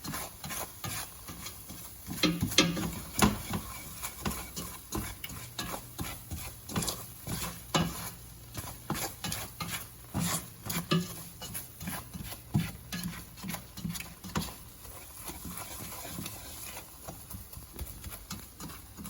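A utensil stirring a butter-and-flour roux in a skillet, scraping and knocking against the pan about once or twice a second, over a faint sizzle of the roux cooking.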